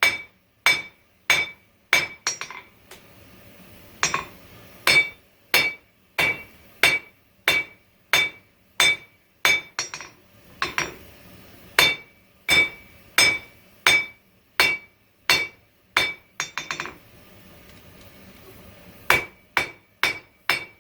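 Blacksmith's hammer striking hot coil spring steel on an anvil, a steady run of blows about one every 0.7 seconds, each with a bright metallic ring, drawing down and thinning the bar. The hammering pauses briefly about three seconds in and again for about two seconds near the end.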